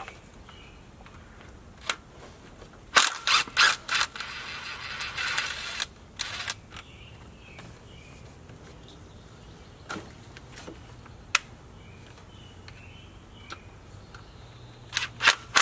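Cordless drill-driver backing out the ground-lead bolt at the fuel rail mount in an engine bay, in several short bursts and one longer run of about a second and a half. Sharp clicks and taps of the tool and metal parts come between the runs.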